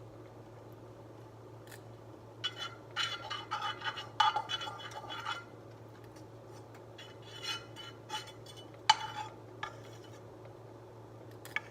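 Cooking utensil clinking and scraping against a skillet in two spells of clatter, a few seconds apart, over a steady low hum.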